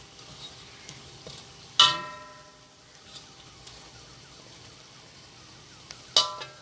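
Salted Indian mackerel frying in oil in a wok with a low, steady sizzle as it is fried until crisp. A metal spatula strikes the wok with a ringing clang about two seconds in and again near the end.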